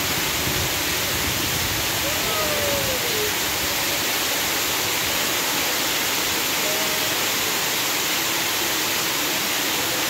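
Heavy rain mixed with a little snow falling, a steady even hiss.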